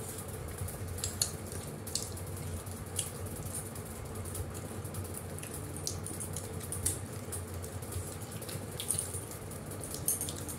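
Eating sounds: wet chewing and lip smacks, with fingers picking at food on the plates, as short irregular clicks over a steady low hum.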